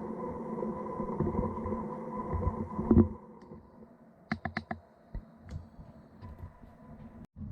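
Feiyu G6 gimbal motors whining steadily as picked up by the GoPro Hero 7's built-in microphone, with low handling knocks. The whine largely stops after a loud knock about three seconds in, followed by a quick run of four sharp clicks.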